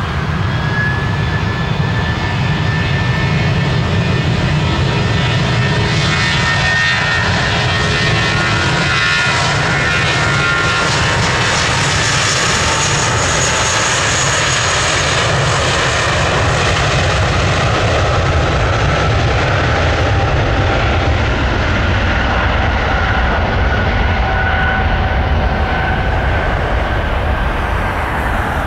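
Airbus A320's IAE V2500 turbofan engines at takeoff thrust during the takeoff roll: a loud, steady jet engine noise with a deep rumble and a high whine. The whine drops a little in pitch as the aircraft passes, and the rumble grows heavier toward the end as it rotates.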